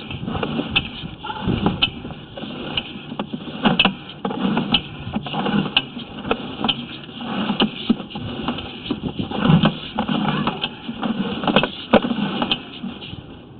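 Irregular knocking and rattling as a sewer inspection camera's push cable is fed by hand up a 4-inch clay sewer lateral.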